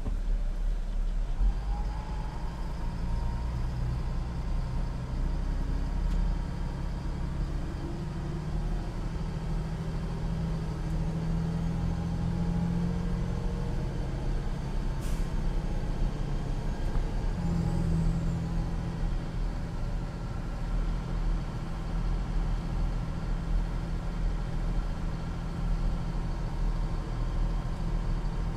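Caterpillar 3126B inline-six diesel of an M1078A1 LMTV military truck, heard from inside the cab, pulling away and accelerating. Its pitch climbs for about ten seconds, drops once as the automatic transmission shifts up, then holds steady at cruise. A single sharp click sounds about halfway through.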